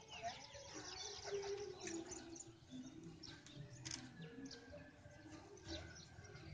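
Many small birds chirping, a busy scatter of short, quick high calls.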